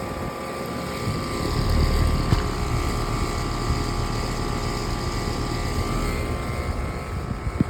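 Outdoor air conditioner condenser unit running: a steady fan whir over a low compressor hum with a steady tone in it, and a brief tick near the end.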